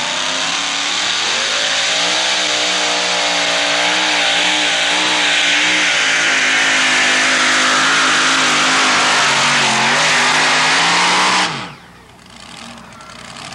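Supercharged engine of a two-wheel-drive pulling truck at full throttle under load as it drags the weight sled, its pitch wavering. About eleven and a half seconds in the engine cuts off suddenly, winding down in pitch, at the end of the pull.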